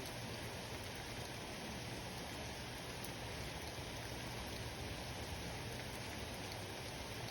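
Steady rain falling during a thunderstorm: an even hiss of drops with no thunder in it.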